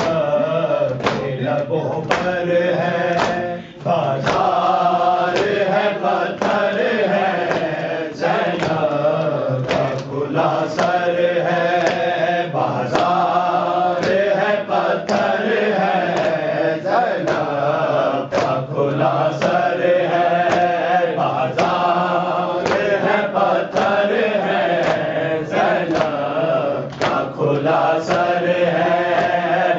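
Noha, a Shia lamentation chant in Urdu, sung by reciters' voices in a slow repeating melody, with a sharp steady beat keeping time throughout.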